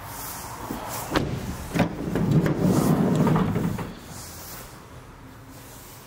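Ford Transit van's sliding side door being worked: two sharp latch clunks, then a rolling rumble of about two seconds as the door runs along its track.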